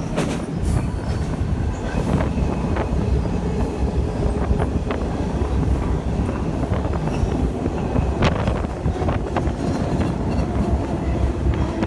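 Freight train rolling along, heard from aboard an intermodal container car: a steady rumble of steel wheels on rail with occasional sharp clicks and brief squeaks.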